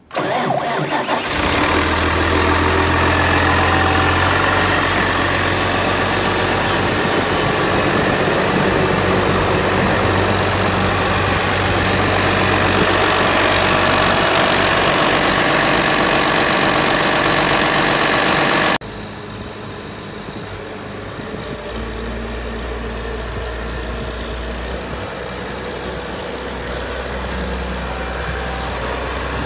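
2011 New Holland T8020 tractor's six-cylinder diesel engine starting and settling into a steady idle, heard close up in the open engine bay. About two-thirds of the way through it turns suddenly quieter and duller, the same idle heard from farther off.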